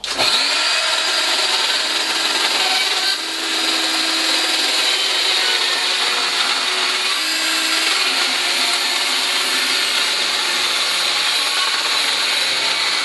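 Bosch 12-volt cordless circular saw running and cutting, pushed along its track to trim the cutting strip against a piece of scrap wood. A steady saw noise with a high whine, dipping briefly about three seconds in.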